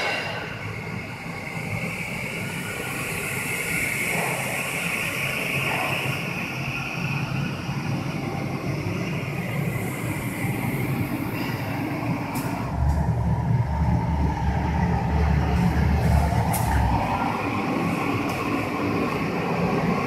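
1800mm vertical glass washing machine running: a steady mechanical whirr with a hiss over it, joined by a deeper rumble for about four seconds in the second half.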